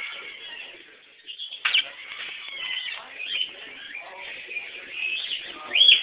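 Parrot calls: a run of short chirps and whistling pitch glides, with a sharper rising-and-falling call near the end.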